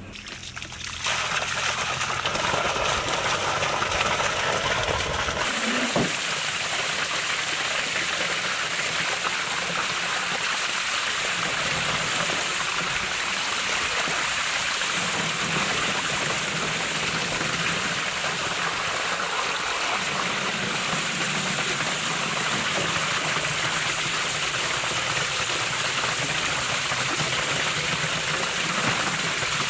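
A strong stream of water pouring and splashing onto a large fish and a metal tray as the fish is rinsed by hand. It starts about a second in and then runs steadily.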